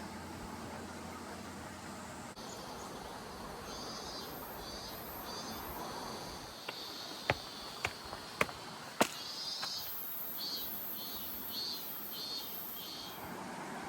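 Insects chirping in a run of short, high pulses about twice a second over a steady background hiss, with four sharp clicks near the middle.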